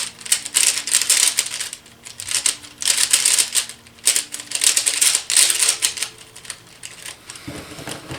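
A 3x3 speed cube being turned fast by hand: a dense clicking clatter of the plastic layers in bursts of a second or two with short pauses between them, thinning out over the last couple of seconds.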